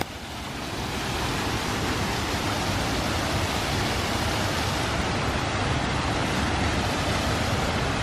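Steady rushing noise of a large waterfall, Toketee Falls, swelling over the first second and then holding level.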